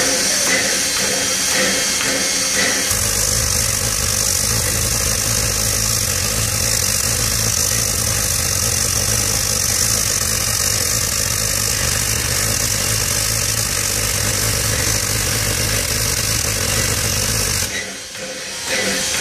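NSW 32 class steam locomotive 3265 standing with steam up, giving off a steady hiss of escaping steam. A steady low rumble joins about three seconds in, and both drop out briefly near the end.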